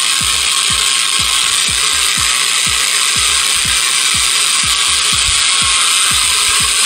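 Corded electric drill running slowly with a rotary spot weld cutter, cutting out a spot weld in a car's sheet-metal roof. There is a steady, even grinding noise with low thuds about three times a second.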